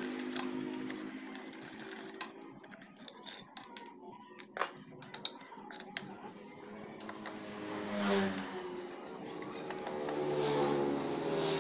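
Scattered light metallic clicks and ticks of a hand tool working at the screws of a Honda Astrea Grand's magneto cover, densest in the middle of the stretch.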